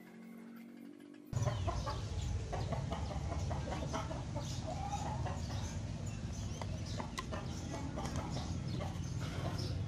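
Chickens clucking, with short clicks and scrapes of a knife scoring a PVC pipe, over a steady low rumble that starts abruptly about a second in.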